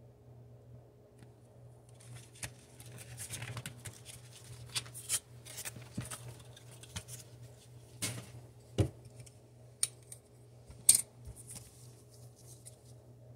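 Hands handling a pair of scissors and a foil Pokémon card booster pack: crinkling of the foil wrapper and a string of sharp clicks and taps, starting about two seconds in.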